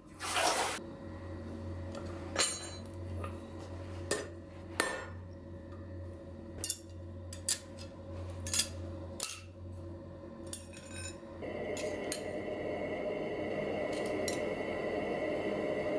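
Pieces of scrap steel clinking and tapping at irregular intervals. A steady whirring machine noise joins about two-thirds of the way in.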